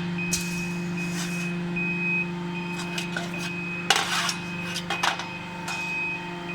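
Rotor die casting machine running: a steady low hum under a faint high tone that comes and goes, with sharp metallic clanks about half a second in, about a second in, twice around four seconds, and about five seconds in.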